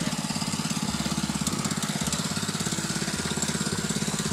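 Mini bike's small single-cylinder engine running steadily under way, with a rapid, even pulse.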